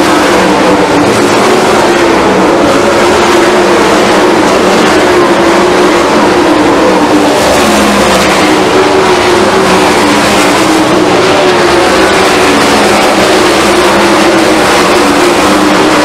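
A field of 410 sprint cars racing on a dirt oval, their 410-cubic-inch V8 engines at full throttle. The sound is loud and constant, with several overlapping engine notes rising and falling as the cars circle the track.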